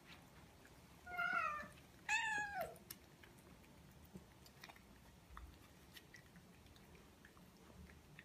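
A cat meowing twice in close succession, each meow falling in pitch, the second a little longer; faint clicks of eating at the food bowls follow.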